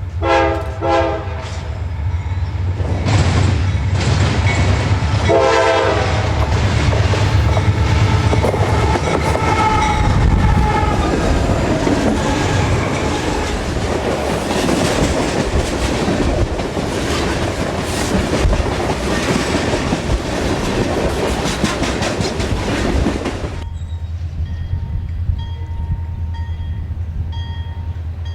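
Diesel freight train locomotive horn sounding short blasts, then the train running past loudly with steady wheel-and-rail noise for about twenty seconds. The train noise cuts off suddenly near the end, leaving a quieter low rumble.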